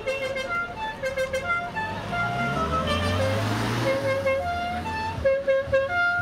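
Background music with a bright melody of short stepped notes, over the low running of a Seat 600's small engine as the car moves off.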